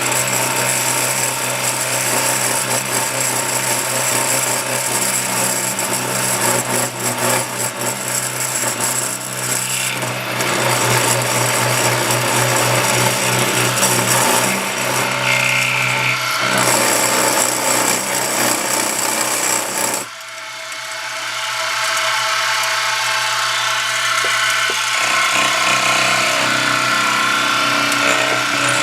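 Milling machine cutting a die-cast locomotive frame weight: a steady motor hum under the continuous grinding chatter of the bit taking metal off. The cutting sound drops off suddenly about twenty seconds in, then builds back up.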